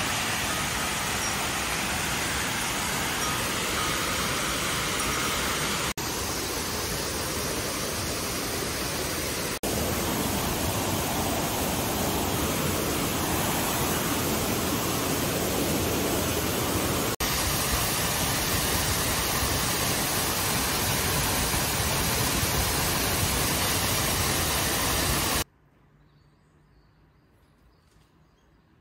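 Steady rushing of a forest waterfall and mountain stream, an even hiss that carries on through several cuts and then drops to a faint hush near the end.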